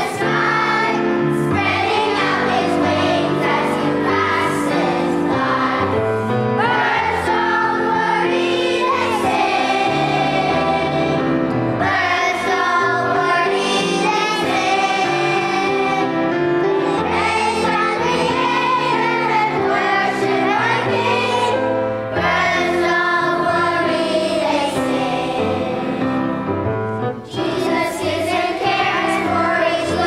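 Children's choir singing a song together in unison, the singing running on without a break.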